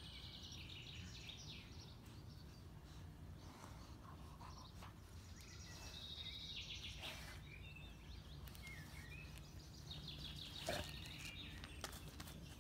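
Birds chirping in short bursts of quick, high notes over a steady low background noise, with one brief sharp sound about ten and a half seconds in.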